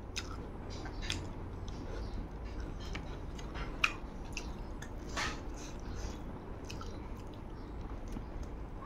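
Chewing and mouth sounds of a person eating rice by hand, with scattered small wet clicks and one sharper click about four seconds in.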